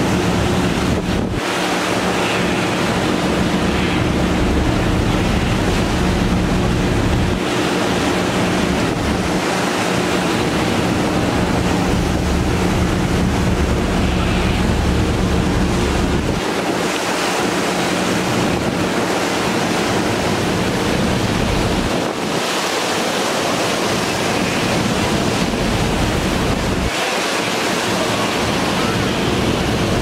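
Rough open sea churning and splashing, with wind buffeting the microphone in gusts that come and go. A steady low hum runs underneath for the first half.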